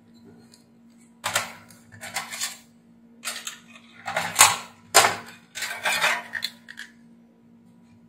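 Metal and plastic clattering and scraping in a run of short bursts as the heater's control circuit board on its metal bracket is unscrewed and lifted out of the sheet-metal base. The loudest knocks come around the middle.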